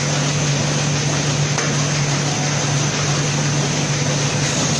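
Muller Martini Amigo Plus four-clamp perfect binder running: a steady mechanical din from the machine with a constant low hum beneath it, and a faint click about a second and a half in.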